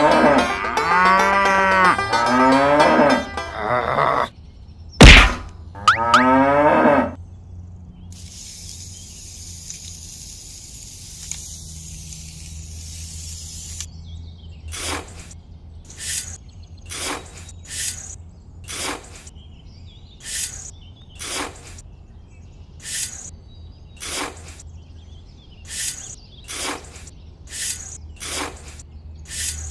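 A cow mooing, two long calls with a sharp knock between them. After a stretch of faint hiss, a small trowel digging in damp sand, short scrapes about once a second.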